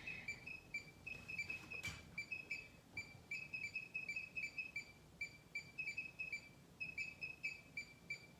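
Rapid, uneven run of short high-pitched electronic beeps, several a second, from a digital instrument on the bench. One click comes about two seconds in.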